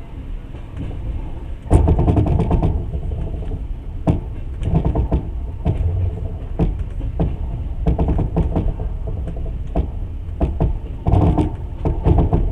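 Passenger train's wheels running over rail joints and switches: a steady low rumble with irregular clusters of sharp clacks and knocks, the loudest runs about two seconds in and near the end.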